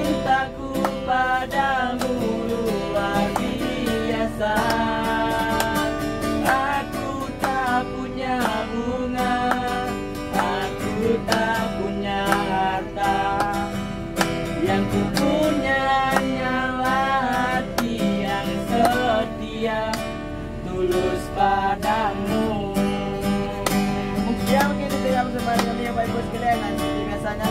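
Acoustic guitar strummed by a busker in the bus aisle, with a voice singing a song over it.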